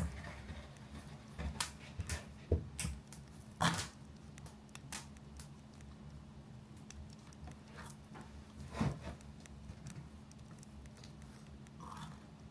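Crackling bonfire ambience with scattered small knocks and taps from desk work, the loudest a few seconds in and another near nine seconds, over a faint steady hum.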